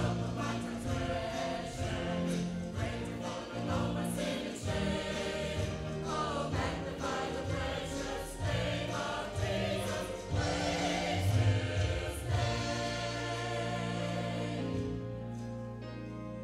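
Church choir singing a hymn or anthem with instrumental accompaniment; the voices fade out near the end, leaving the accompaniment.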